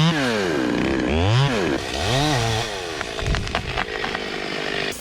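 Two-stroke chainsaw engine revving up and down about three times, its pitch rising and falling, then settling lower with a few sharp clicks.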